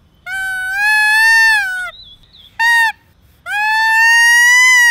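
Plastic membrane whistle with a vibrating aluminium-foil membrane, blown from the side, giving a loud reedy tone. Three blows: a note of about a second and a half that rises in pitch, a short toot, then a long note that slowly climbs. The pitch bends as the exit tube is partly covered by a finger.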